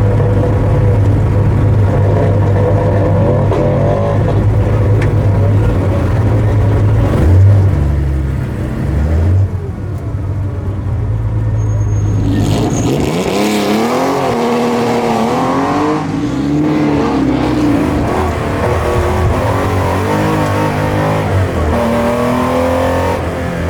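Porsche 911 930's flat-six engine heard from inside the cabin. For about twelve seconds it holds steady low revs with a couple of brief blips. It then revs up and down repeatedly under hard acceleration and gear changes.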